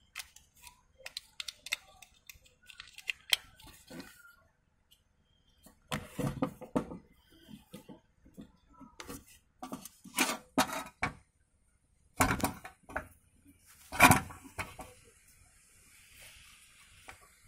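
Large plastic toy building blocks clicking and clattering as they are handled and pressed together, in scattered groups of knocks, the loudest about fourteen seconds in.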